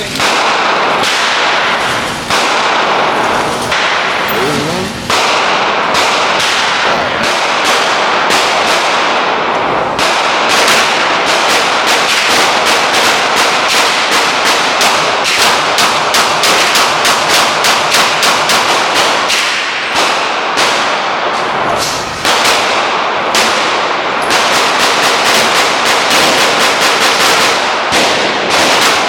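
Gunfire at an indoor shooting range: shots in quick succession, often several a second, each with an echo, pausing briefly a few times.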